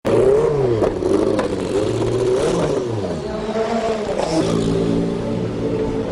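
Nissan R90CK race car's twin-turbo V8 running hard, its pitch rising and falling repeatedly as it revs through the gears, then dropping and holding a steadier note from about four seconds in.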